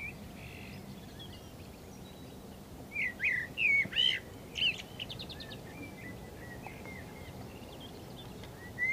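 Small birds singing, with short chirps and slurred whistles and a quick trill in a busier burst of song about three to five seconds in, over a low steady background noise.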